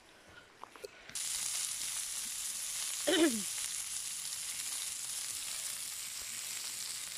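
A burger patty with sliced onions and mushrooms sizzling in a ridged grill pan on a camping stove; the steady high sizzle cuts in suddenly about a second in after a near-quiet start with a couple of clicks. A brief vocal sound falling in pitch rises over the sizzle about three seconds in.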